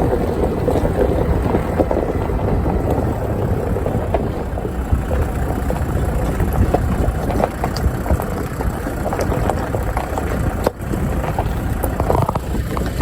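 4x4 off-road vehicle driving a rough, rocky track: steady engine and tyre rumble with scattered small knocks.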